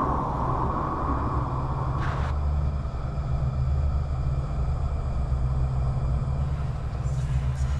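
A deep, steady rumbling drone with a low hum in it, overlaid for the first two seconds by a hissing wash that ends after a brief brighter flare.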